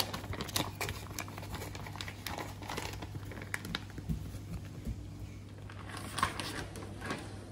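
Clear plastic bag crinkling and rustling in irregular bursts as sliced bacon is handled out of it, over a low steady hum.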